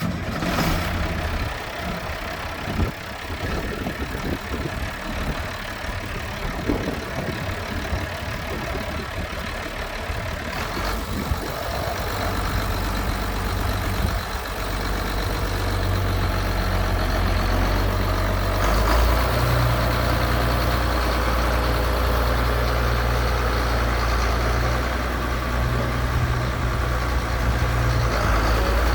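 Allis-Chalmers 7040 tractor's six-cylinder diesel engine running. Its note becomes steadier and louder after about twelve seconds and steps up again about two-thirds of the way through, with scattered knocks in the first part.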